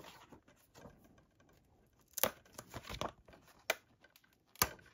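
Cardboard J-slip being slid off a metal steelbook case: paper rustling and scraping, heaviest about halfway through, with a few sharp handling clicks, the last near the end.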